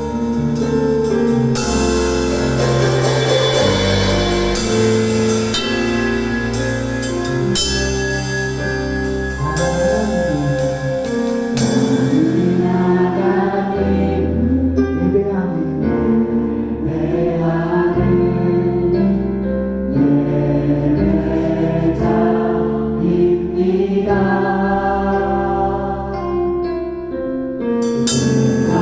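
Korean contemporary worship song with sung vocals over a band, a drum kit played along with it. Cymbals and drums are busy through the first part and thin out about halfway.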